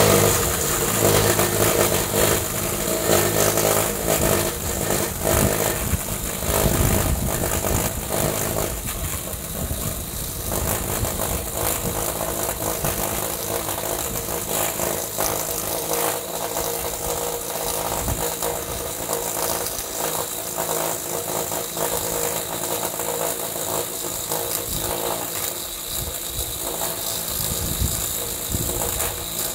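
Milwaukee M12 Fuel Hatchet cordless pruning saw, its battery-powered motor driving an Oregon 14-inch bar and chain, running continuously as it cuts slowly down through a weathered 2x6 board, throwing wood chips.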